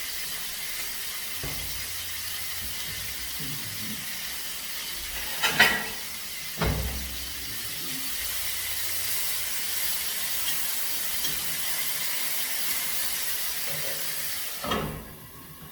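Chopped tomato, garlic and seasoning sizzling steadily in hot cooking oil in a pot, with two sharp knocks against the pot about five and a half seconds in and another near the end, where the sizzle drops away suddenly.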